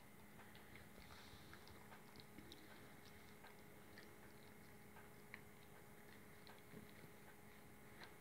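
Great Dane puppy chewing and licking, heard as faint, irregular small wet clicks, a few each second.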